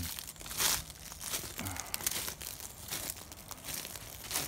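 Dry leaves and brush crunching and rustling in an irregular crackle, with two louder crunches about half a second in and near the end.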